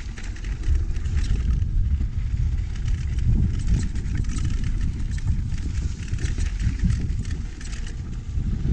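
Mountain bike descending a rocky, gravelly trail: wind rumbling on the helmet camera's microphone, with tyres crunching over loose stones and the bike rattling in quick, irregular clicks.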